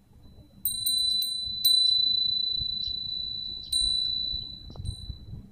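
Nanbu cast-iron wind bell (fūrin) rung by its clapper as the breeze swings its paper strip. Several quick strikes come in the first second and a half, one more a couple of seconds later and a faint one near the end. Between strikes a single high, clear ring hangs on and slowly fades.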